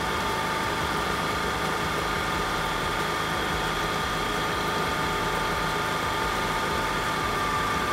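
Honda Activa scooter's single-cylinder four-stroke engine idling steadily while its carburettor air screw is slowly turned out to find the highest idle speed.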